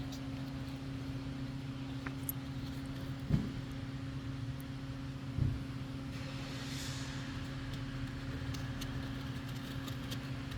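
A steady low mechanical hum, like an idling engine or a running motor, with two soft knocks and a brief hiss.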